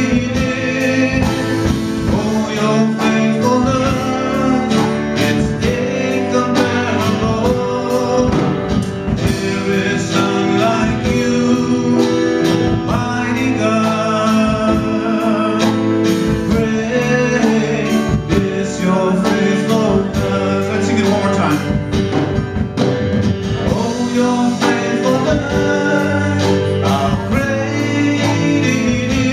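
Live church worship band playing a gospel song: vocalists singing over electric and acoustic guitars with a steady drum beat.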